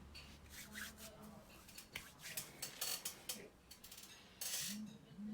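Faint rustling and light clicks of things being handled, with one louder, longer rustle or scrape about four and a half seconds in.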